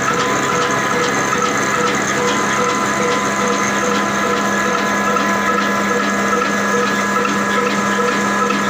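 Mughal Sunrise desi black diesel oil engine (18/20 HP, rated 300 RPM) running steadily at slow speed, turning its flywheel and the belt-driven pulleys. It is a steady mechanical run with a regular train of short clicks over a constant hum and whine.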